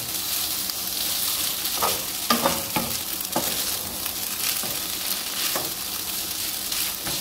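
Spaghetti, cabbage and chicken sizzling in oil in a non-stick pan over high heat while a wooden spatula stirs and tosses them. A few brief clatters of the spatula against the pan come about two to three seconds in.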